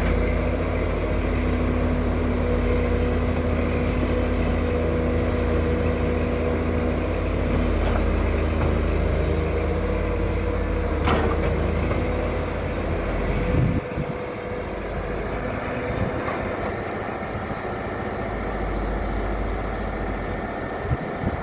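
Excavator's diesel engine running steadily with a deep rumble, with two sharp clanks about eight and eleven seconds in. About fourteen seconds in, the deep rumble drops back suddenly and the engine runs on more lightly.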